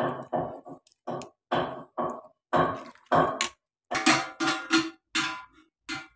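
Background music: short, separate pitched notes in a steady rhythm, about two to three a second, starting suddenly right at the start.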